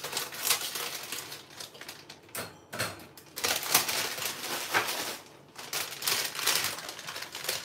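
Clear plastic produce bag crinkling and rustling in irregular bursts as it is pulled open and handled, loudest around the middle.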